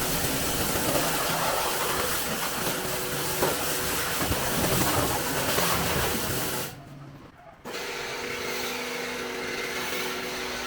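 Compressed air hissing steadily from a shop air tool. It breaks off for about a second past the middle, then resumes with a faint steady hum under it.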